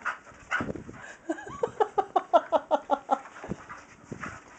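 A Staffordshire terrier whirls after her tail on carpet, her paws patting and thumping. In the middle comes a quick run of about ten short, high yips.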